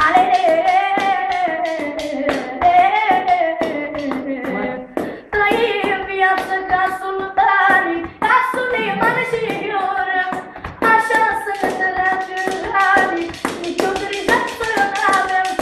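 A teenage boy singing a manele song with no instruments, in a high voice with sliding, ornamented phrases, over a quick, steady tapping beat.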